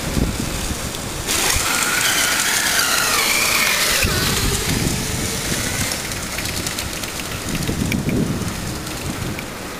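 Electric shopping-cart go-kart driving on wet pavement: a steady wet hiss of tyres through water, louder from about a second in, with a high whine that wavers up and down while the cart is close.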